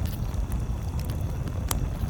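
Campfire crackling: scattered sharp pops, one louder pop near the end, over a low steady rumble.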